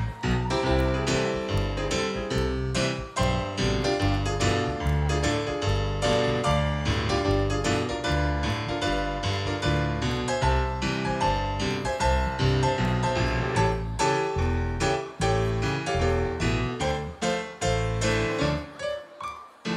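Swing band playing an instrumental passage live: keyboard piano carries the melody over double bass and steady drum hits.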